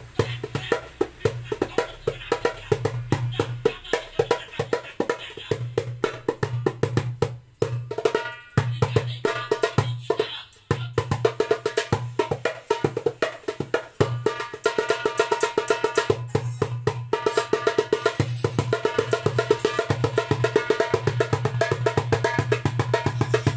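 9-inch darbuka with a Remo synthetic head played by hand in a fast rhythm, mixing deep bass strokes with sharp, ringing rim strokes and quick rolls, with two short breaks about 8 and 10 seconds in.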